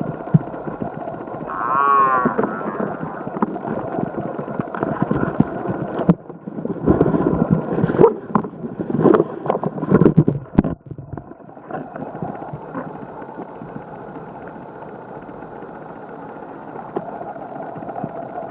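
A short, wavering moo-like call about two seconds in, which the video attributes to a gray diving beetle (Eretes griseus). It sits over a steady background hum, with a few seconds of rough, uneven noise in the middle.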